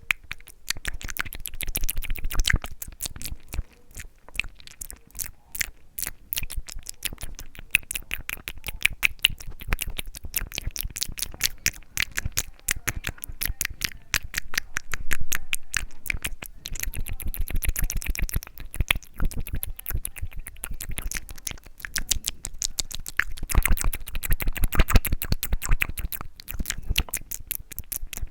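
Close-miked ASMR mouth sounds: a continuous stream of quick wet clicks and smacks of lips and tongue, several a second.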